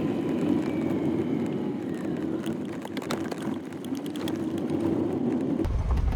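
A 4x4 Jeep's engine running under load as it climbs a steep rocky trail, with scattered clicks and crunches from the tyres on rock. A little before the end the sound changes to a deeper rumble.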